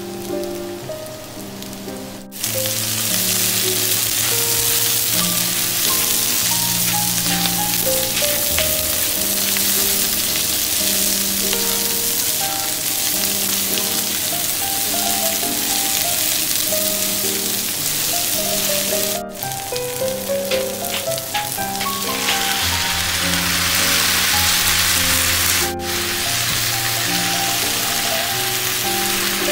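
Sliced capsicum and onion sizzling in hot oil in a nonstick wok while being stirred with a spatula. The loud sizzle starts about two seconds in and cuts out briefly twice. Light background music plays throughout.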